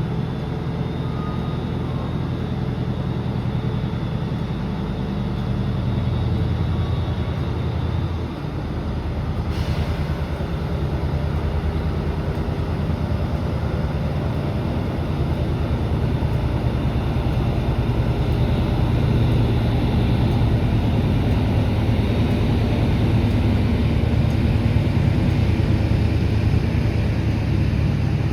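Diesel-electric locomotive engine running with a steady deep drone. The sound dips briefly about eight seconds in, then builds slightly louder through the second half.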